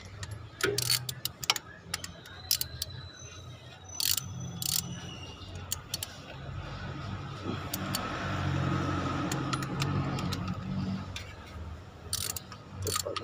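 Steel socket wrench and extension clinking and tapping against the engine while water pump bolts are tightened, some clinks ringing briefly. A steady rumble swells up about six seconds in and fades near the end, with more clinks.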